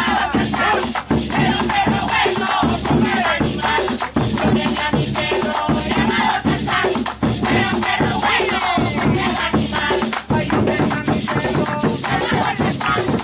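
Live folk percussion music: a drum beaten with a stick in a fast, steady beat with rattling percussion and hand clapping, and voices singing over it.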